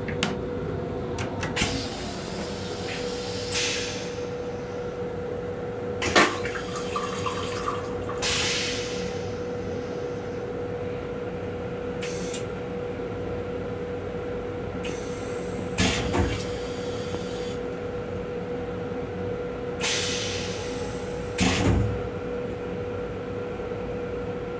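Steady hum with a constant high tone inside an M7 electric railcar's restroom while the train runs. A few sharp knocks and several short hisses of about a second each break in.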